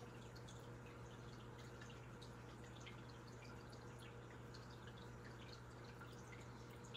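Faint tap water running into a sink, with small drips and splashes throughout and a low steady hum underneath.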